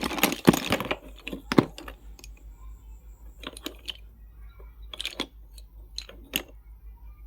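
Slate pencils and their box being handled: dense crackling for about the first second, then a handful of scattered sharp clicks and crackles.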